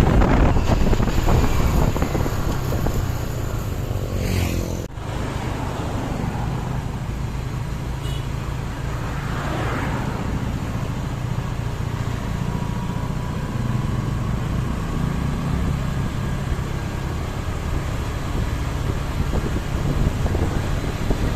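Road traffic: vehicle engines running and passing with a steady low rumble, loudest at the very start.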